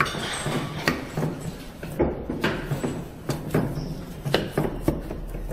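Knife chopping on a cutting board: irregular sharp knocks, a dozen or so, over a low steady hum.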